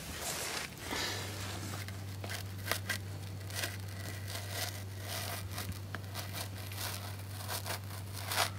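Razor blade slicing through automotive carpet in a run of short, irregular, scratchy tearing strokes, with a steady low hum underneath from about a second in.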